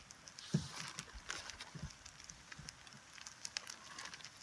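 Floured cod pieces sizzling faintly in melted butter in a frying pan, with a steady light hiss and scattered small crackles and pops.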